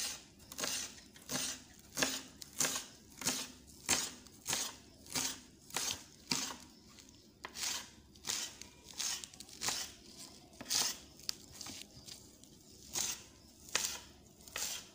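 Kitchen knife slicing through a bunch of crisp lettuce leaves onto a cutting board, a steady run of short, crisp strokes a little under two a second.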